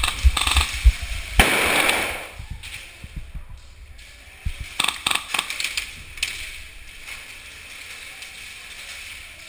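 Sharp snaps and clicks in an airsoft game: a few thumps and clicks, then a short rush of noise, then a quick cluster of sharp snaps about five seconds in, typical of airsoft shots and gear handling.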